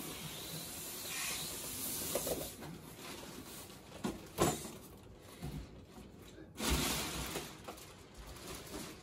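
Styrofoam packing blocks scraping and squeaking as they are pulled out of a cardboard box, with plastic wrap rustling. There are sharper bursts of rustling about halfway through and again a couple of seconds later.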